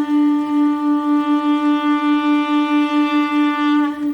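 Wind instruments holding a long final note with a pulsing vibrato about four times a second, cutting off near the end.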